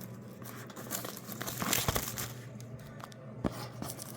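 A shipping box and its packaging being opened by hand: crinkling and tearing, with scattered small clicks and knocks.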